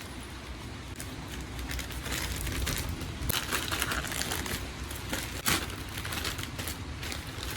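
Plastic packaging crinkling and rustling in irregular spells as a parcel is handled and opened, with a few sharp clicks.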